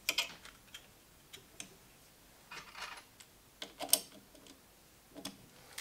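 Light, scattered clicks and short scrapes of an Allen key driving long bolts by hand into a 3D printer's X-axis motor bracket, loudest about four seconds in.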